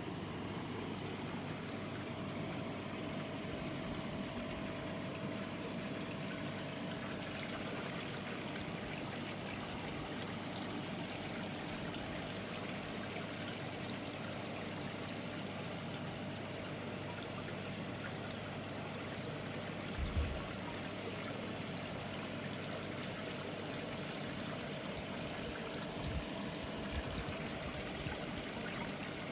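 Steady trickling and pouring of running water into a koi pond, with a faint steady hum. A few low thumps come about two-thirds of the way in and again near the end.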